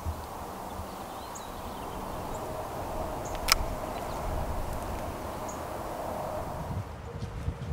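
Spinning reel cranked to retrieve a jig, a steady whir, with one sharp click about three and a half seconds in. Birds chirp faintly now and then.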